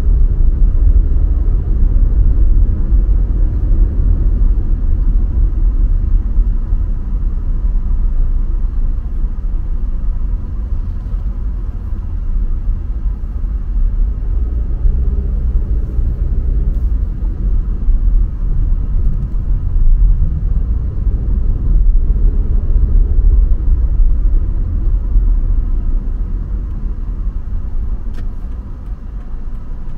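Car driving along: a steady low rumble of the moving vehicle, a little quieter near the end.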